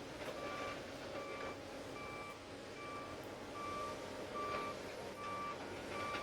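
Back-up alarm on heavy mining machinery beeping steadily, a single-pitched beep about once a second, over the engine running underneath.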